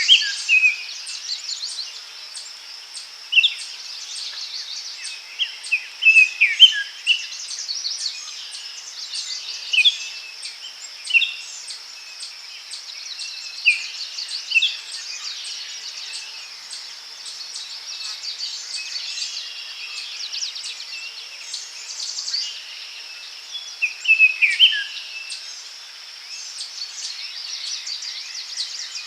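Forest ambience: songbirds calling in short clusters of falling whistled notes every few seconds, over a steady high-pitched insect buzz with an even, rapid pulse.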